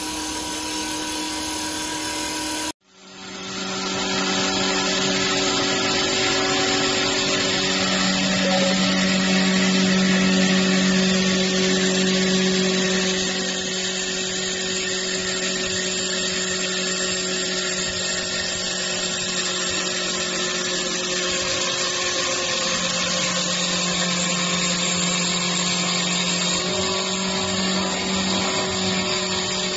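Automatic CNC wood lathes running and turning wooden spindles: a steady motor hum and whine under the rasping noise of the wood being cut. The sound drops out for an instant about three seconds in, swells louder for several seconds, then settles back to a steady level.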